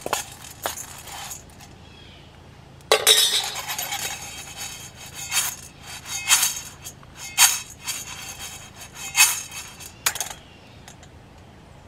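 Freshly roasted coffee beans in a steel frying pan: first clinking as a metal spoon stirs them, then from about three seconds in the pan is shaken and the beans rattle and slide against the metal in rough shakes about once a second, stopping near the end.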